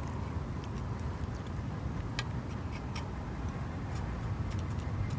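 Light clicks and ticks of metal tweezers pushing sand and small rocks around a cactus in a planter, a few sharp taps spread through, over a steady low hum.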